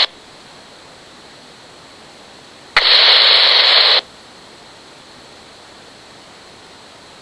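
RadioShack Pro-97 police scanner with a low steady hiss between transmissions. About three seconds in, a channel opens for about a second with a burst of static and no voice, then cuts off abruptly.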